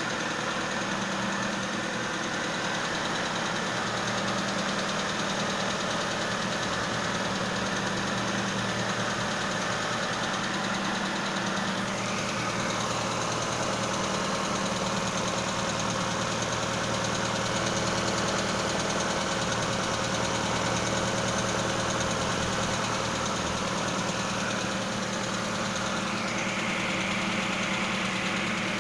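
Ford Probe's 2.0-litre four-cylinder engine idling steadily with no revving. A higher hiss comes in near the end.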